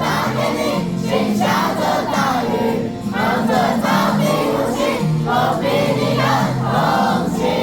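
A crowd of students singing along to a Mandarin pop chorus over the song's backing track, many voices together rather than one clear solo.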